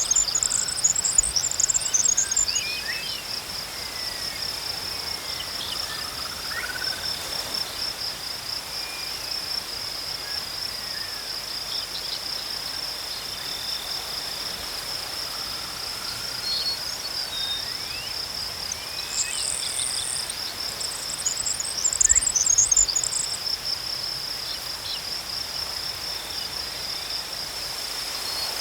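Crickets chirping in a steady, rapid pulsing trill. Louder, higher chirring bursts come in at the start and again about two-thirds of the way through, and a few faint sliding whistles sound beneath.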